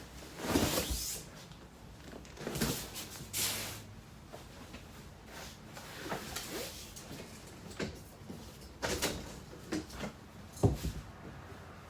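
Trifold sleeper sofa being unfolded by hand: irregular soft knocks, bumps and rustles as the cushions and folding mattress sections are moved and set down.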